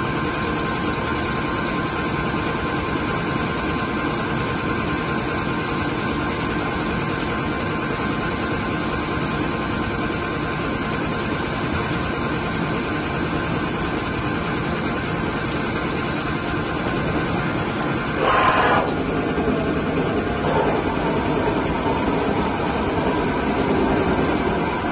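CNC lathe running with its spindle turning and coolant spraying: a steady machine hum with a hiss. About three-quarters of the way through there is a brief louder noise, and the sound stays somewhat busier after it as the tool turret moves to a new position.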